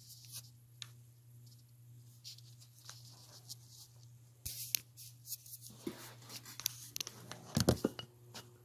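Faint rustling and scattered clicks of things being handled, busier and louder near the end, over a steady low hum.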